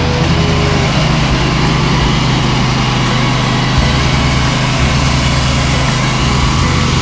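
Wood-Mizer band sawmill's engine running steadily.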